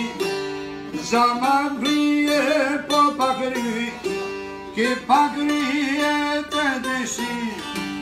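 Albanian folk song: a male voice singing with wavering, ornamented phrases, accompanied by a long-necked plucked lute.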